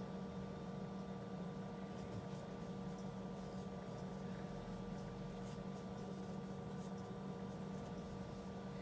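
Steady low hum of room background noise, with a few faint, light ticks scattered through it.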